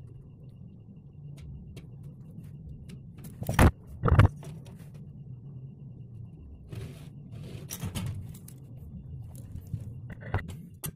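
Hard objects clinking, knocking and scraping as they are handled, with two loud knocks about three and a half and four seconds in, over a low steady hum.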